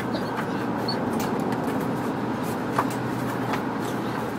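Steady road and engine noise inside a moving van's cabin, with a few faint clicks.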